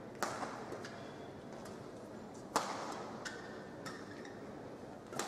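Badminton rackets striking the shuttlecock during a singles rally: three sharp, loud hits about two and a half seconds apart, with fainter clicks and brief squeaks between, over the steady hum of a sports hall.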